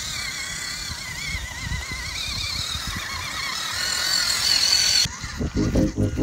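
Small electric motor and gear drive of a WPL B36 Ural RC truck whining, its pitch wavering with throttle as it drives over grass. The whine cuts off abruptly about five seconds in, replaced by a lower pitched sound pulsing about three times a second.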